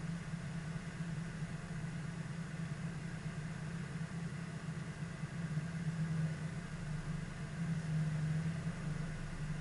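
Engine of a parked car idling, a steady low hum heard from inside the cab.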